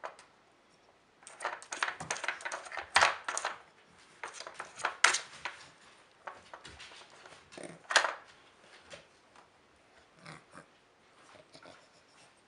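Hard plastic clacking and rattling as a dog noses and paws at the pieces of a Trixie level-2 dog strategy game, knocking cones and lids against the board. The clatter comes in irregular bunches, heaviest in the first few seconds and again around five and eight seconds in, then thins to light scattered ticks.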